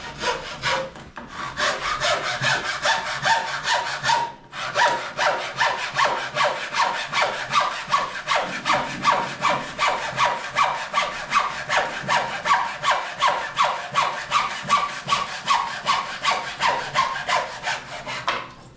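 Hand saw cutting in steady back-and-forth strokes, about two a second, with a brief pause about four seconds in before the strokes resume.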